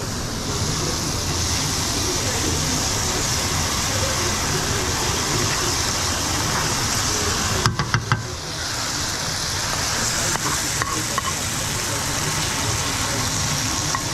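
Food frying in a hot pan, a steady sizzling hiss. About eight seconds in there is a quick cluster of four or five sharp knocks, and the sizzle drops away for a moment before it comes back.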